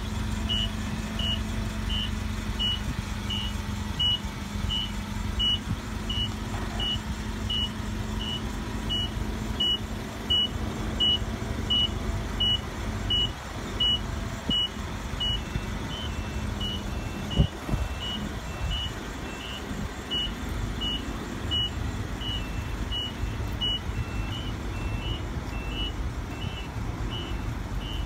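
Forklift warning beeper sounding in an even train, about one and a half high beeps a second, over the forklift's engine running. The engine hum fades about halfway through, and there is a single sharp knock about seventeen seconds in.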